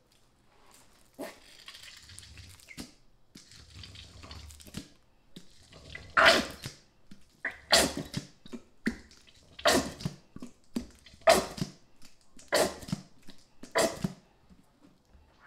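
A dog barking repeatedly, one sharp bark about every second and a half, starting about six seconds in. Before the barking, a soft crinkly rustle as a plastic squeeze bottle of barbecue sauce is handled.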